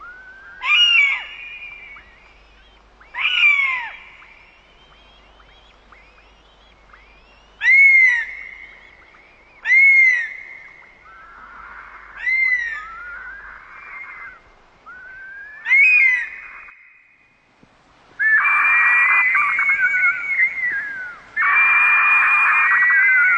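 Bird of prey calling: single high, arched screeches every two to three seconds, then near the end a louder, continuous run of overlapping shrill calls.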